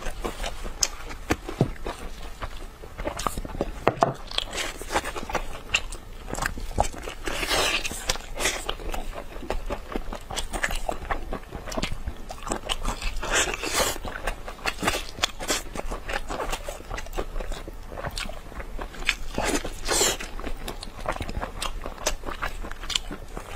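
Close-miked eating of glazed ribs: biting and chewing with many small clicks, and a few louder, longer noisy bursts spaced several seconds apart.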